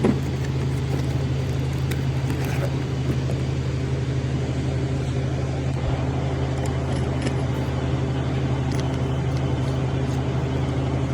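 Steady low hum of a running vehicle engine, unchanging throughout, with a few faint clicks.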